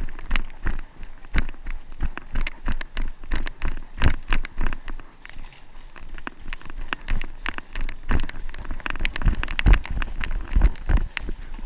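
Running footsteps crunching over a forest floor of twigs and needles, with a fast, irregular clatter of snapping and rustling and dull knocks of jostled gear.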